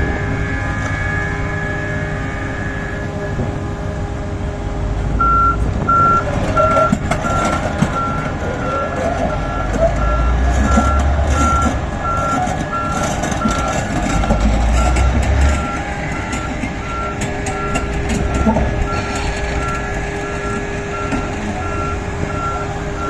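A large mining excavator's engine runs steadily, with rough rattling and grinding of rock and heavy low rumbles in the middle stretch. From about five seconds in, a reversing alarm beeps evenly, about once every 0.7 seconds.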